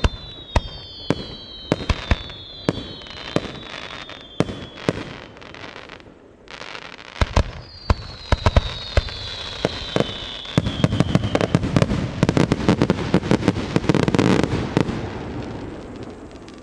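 Aerial fireworks shells bursting with sharp bangs about twice a second, overlaid by several whistles that fall in pitch. About ten seconds in, a dense volley of rapid bangs and crackling builds, then fades away over the last couple of seconds.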